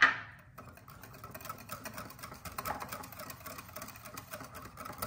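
Wire whisk beating a thick mayonnaise sauce in a glass bowl: a fast, steady scraping and ticking of the wires against the glass. It opens with a sharp clink as a small glass dish is set down on the stone counter.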